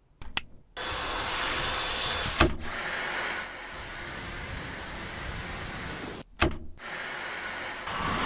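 Vacuum cleaner motor running with a steady high whine, cut off abruptly and resumed twice, with a short knock about two and a half seconds in and another near six and a half seconds.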